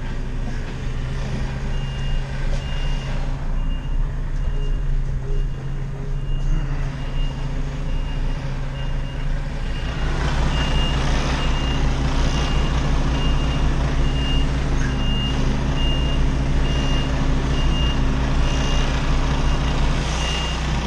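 Articulated lorry reversing: its diesel engine runs steadily and the reversing alarm gives regular high beeps from about two seconds in. About halfway through, the engine gets louder as it pulls harder.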